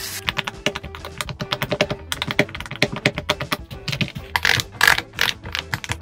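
Fingers pressing the silicone bubbles of a rainbow pop-it fidget toy: a fast, uneven run of popping clicks, several a second.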